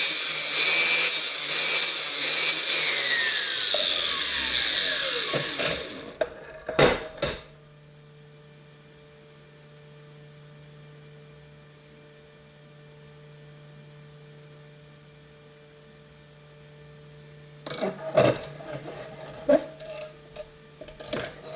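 Angle grinder with a flap disc grinding the cutting edge of a quad-tip auger bit; the grinder is then released and spins down with a falling whine over about three seconds. Two sharp knocks follow, then a long quiet stretch with a faint steady hum, and several more knocks and clinks near the end.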